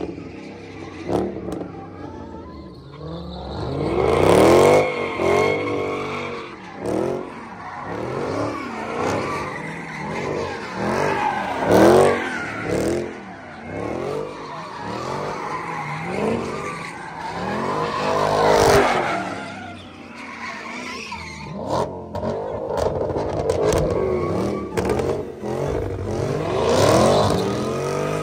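A car's engine revving hard and repeatedly, the pitch rising and falling over and over as the car spins donuts. Its tyres squeal and skid on the asphalt throughout.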